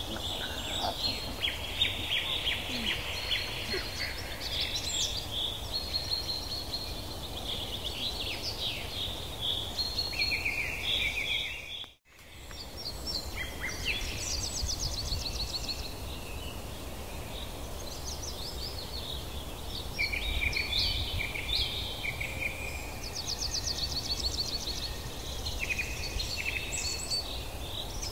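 A chorus of birds chirping and trilling over a steady low background rumble. The sound drops out briefly about twelve seconds in, then comes back.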